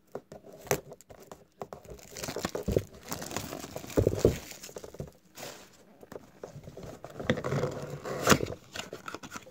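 Packaging of a trading-card blaster box crinkling, tearing and rustling in irregular stretches as the box is unwrapped and opened by hand, with a sharp snap near the end.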